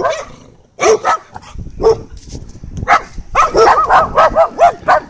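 Dog barking: a few separate barks, then a quick run of barks in the last two seconds.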